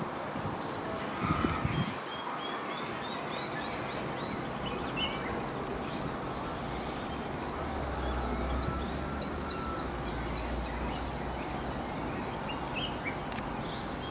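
Outdoor ambience of many small birds chirping in short repeated calls over a steady background hiss, with a couple of low knocks about a second and a half in and a low rumble for a few seconds from about eight seconds in.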